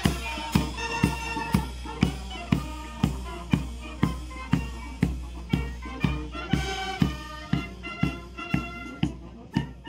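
Marching brass band playing a march: brass melody over a steady bass and snare drum beat, about two beats a second. The brass thins out near the end while the drums keep the beat.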